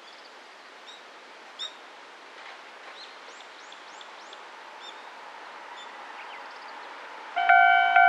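Quiet outdoor background with a few bird chirps. Near the end, a Japanese level crossing's electronic warning bell switches on loudly, a chiming tone repeating about twice a second, the type used at many crossings on the Kamikochi Line, with its speaker facing the road.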